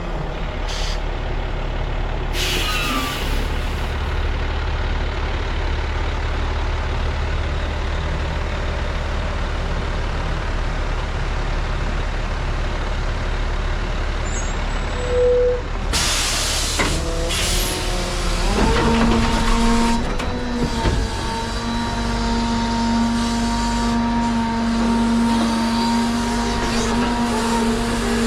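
Heavy truck engine running steadily, with two short bursts of air hiss, about two seconds in and just past halfway. About two-thirds through, a steady higher whine starts and holds, as the engine or a pump on the truck speeds up.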